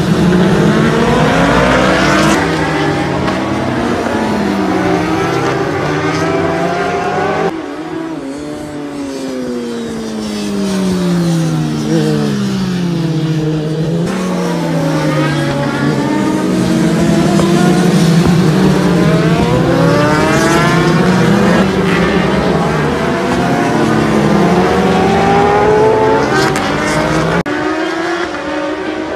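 Several superbike racing motorcycles passing close together, their engines revving hard, the overlapping engine notes rising in pitch as they accelerate and dropping as they shift and brake. The sound breaks off abruptly and resumes with a different mix of bikes twice, about 7.5 and 14 seconds in.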